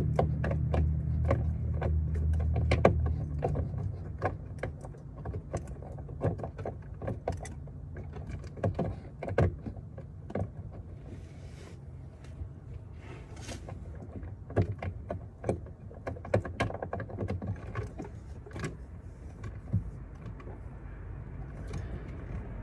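Irregular clicks, taps and light knocks of plastic parts being handled during a taillight install, over a low rumble that fades after the first few seconds.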